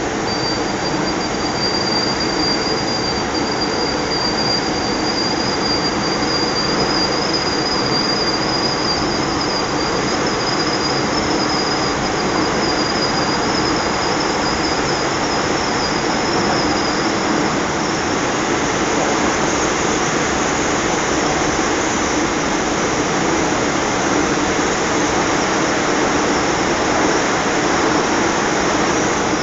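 Interior sound of a first-generation MTR M-Train electric multiple unit in service: a steady rumble of the running train. For a little over the first half a thin, high-pitched steady whine rides over it, then fades away.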